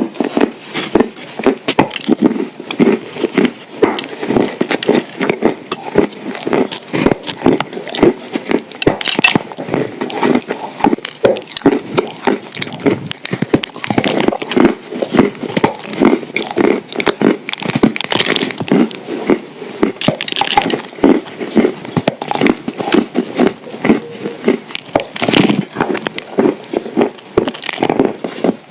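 Close-up crunching and chewing of dry edible clay shaped as a shortbread cookie: a continuous run of sharp crackles and cracks, several a second.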